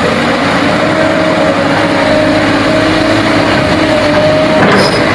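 Excavator's diesel engine running steadily with a constant hum, with a short knock near the end.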